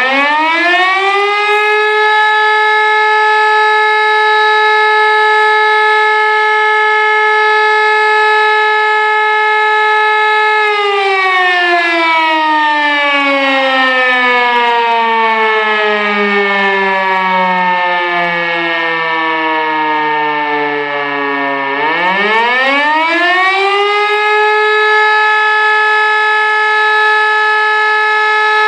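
E57 electromechanical fire-station siren. It holds a steady, loud wail, then its power is cut and it winds down in a long falling glide for about eleven seconds. Near the end it spins back up to full pitch and holds there, the on-off pattern of the German fire-brigade alarm signal sounded as a test.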